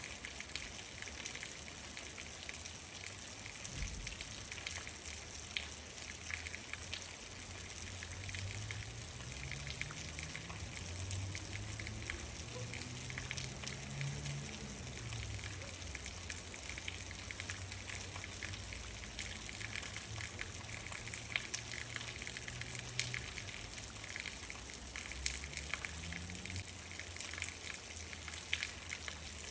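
Steady rain falling, with many individual drops ticking sharply through the hiss. A faint low hum rises and then falls in pitch around the middle, and rises again near the end.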